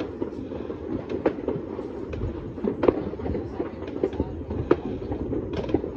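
Fireworks going off all across a town: many distant bangs and pops run together into a constant rumble, with sharper reports scattered irregularly and the loudest about three seconds in.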